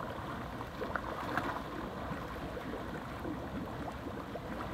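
Hot tub jets running, churning the water with a steady bubbling rush.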